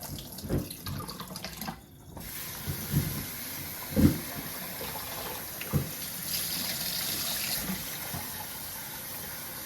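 Kitchen tap running into a sink, turned on about two seconds in and left flowing steadily, with a brief stronger hiss of spray near the middle. A few knocks of things being handled come in the first half.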